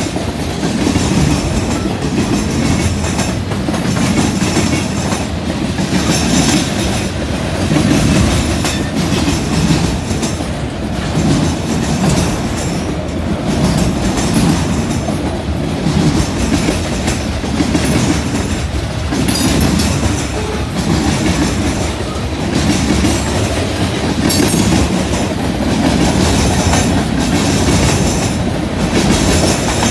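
Freight cars (covered hoppers, boxcars, autoracks and tank cars) rolling past close by: a steady rumble of steel wheels on rail, with clacking that comes back every second or two as the wheel sets pass.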